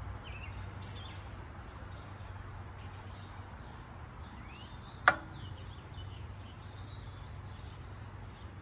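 Birds chirping over a steady background hum, with a single sharp click about five seconds in.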